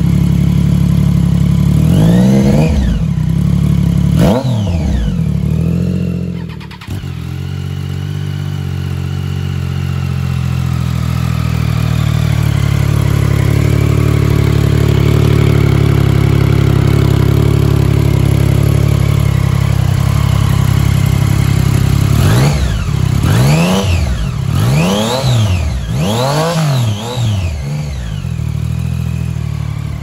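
Triumph Street Triple 660's three-cylinder engine through a Kelpi Alpha muffler and link pipe, idling and blipped on the throttle: two quick revs about two and four seconds in with the muffler's baffle removed. After a cut about seven seconds in, it idles steadily with the baffle fitted, then gets about five quick blips near the end.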